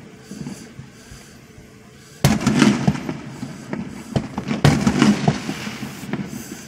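Aerial fireworks shells bursting: two sharp bangs, the first about two seconds in and the second about two and a half seconds later, each trailed by echoing rumble and many smaller pops.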